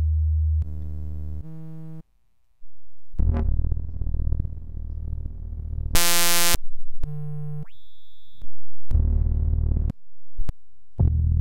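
Trilobite software modular synthesizer playing one evolved patch after another as they are auditioned, each cut off abruptly after half a second to a few seconds, with short gaps between. The patches include low droning tones, buzzy pitched tones, noisy bass-heavy sounds, and a high tone that slides upward.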